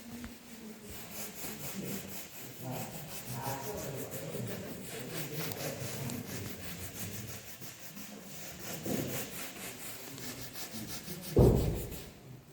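Fast, even rubbing or scraping strokes on a surface, with one heavy thump near the end.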